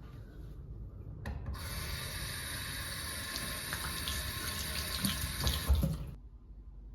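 Water running from a tap into a sink, starting about a second and a half in and cutting off sharply about six seconds in, with a few knocks as things are handled under the stream.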